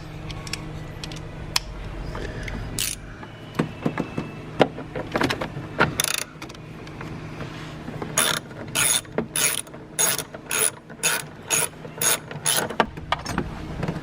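Socket ratchet wrench with an extension loosening a bolt: scattered clicks at first, then a quick regular run of ratcheting strokes at about two a second in the second half.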